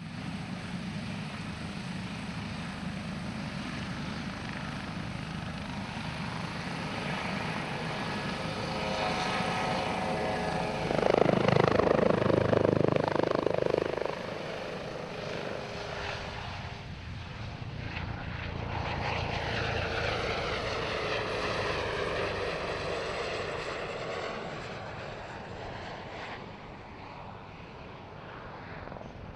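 Airbus Helicopters H145M military helicopter, with twin Turbomeca Arriel 2E turboshafts and a Fenestron tail rotor, flying its display; the engine and rotor sound swells to its loudest about eleven seconds in as it passes close, then sweeps and fades away.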